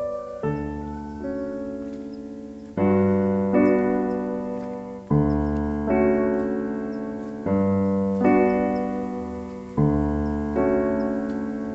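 Slow piano music: sustained chords struck about every two and a half seconds, each one fading away before the next.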